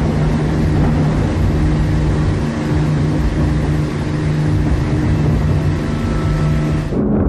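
Propeller bomber's piston engines droning steadily in flight: a rushing noise with a steady low hum beneath it, which cuts off abruptly about seven seconds in.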